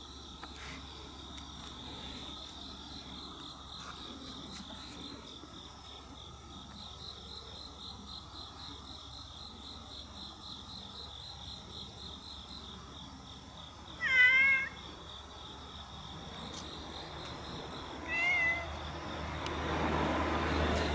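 A domestic cat meows twice over a steady pulsing chirr of night insects: one loud, wavering meow about two-thirds of the way in, and a shorter, quieter one a few seconds later. Near the end a broad rushing noise swells up.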